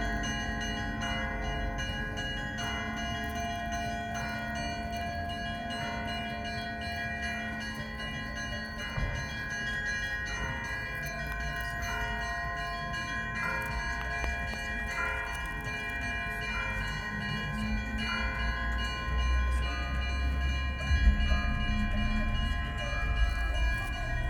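Church bells ringing in the Russian manner: several bells of different pitches struck in a quick repeating pattern, their tones ringing on over one another. A low rumble swells about three quarters of the way through.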